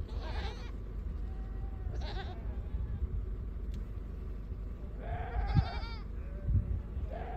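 Goats and sheep of a running herd bleating: about four separate calls, the longest and wavering about five seconds in. A steady low rumble lies underneath, with a couple of low thumps in the second half.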